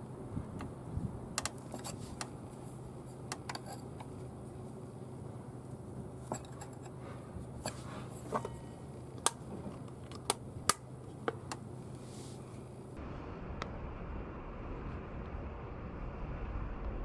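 Scattered light metallic clicks and taps of tools and hardware being handled while knuckle guards are fitted to a motorcycle handlebar, over a steady low hum; the background changes abruptly about 13 seconds in.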